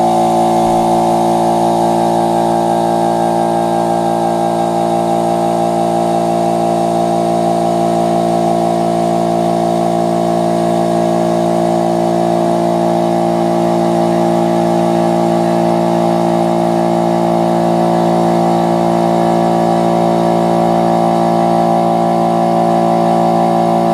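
Electric power tool motor running at one steady speed throughout, a constant humming whine.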